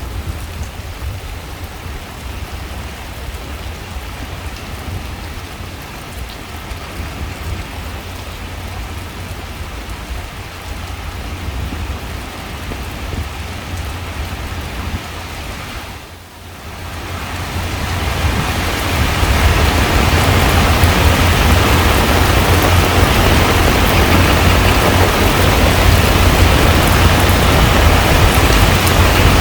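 Heavy rain falling on a pond's surface: a steady dense hiss with a deep low rumble underneath. Just past halfway it dips briefly, then swells louder and thicker.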